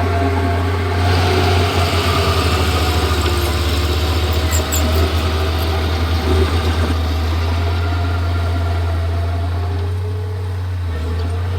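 Komatsu D31P bulldozer's diesel engine running with a steady low drone. Its level wavers rapidly for several seconds, then settles and eases off slightly near the end.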